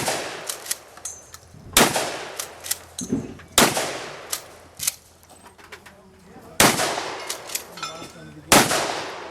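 Shotgun fired five times at steel knock-down targets, a shot about every two seconds with a longer pause in the middle. Each blast trails off in a short echo, and smaller clicks and knocks fall between the shots.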